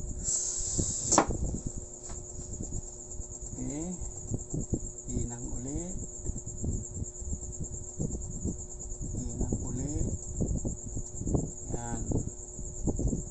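Steady high-pitched insect trilling in the background, with faint distant voices and scattered low knocks from handling. A short hiss about a second in.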